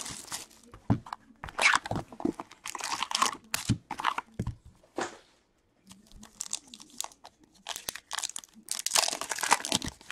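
Cellophane wrap and a cardboard box of Upper Deck Trilogy hockey cards being torn open and handled, in irregular crinkling, crackling bursts. Near the end a foil card pack is crinkled and torn open, the loudest stretch.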